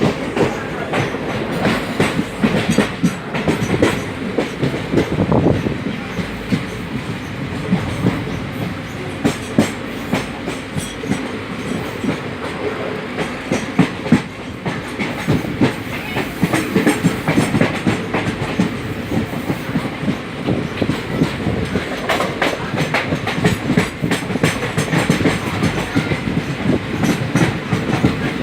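Train running on the rails: a steady rumble with frequent clicks and knocks from the wheels.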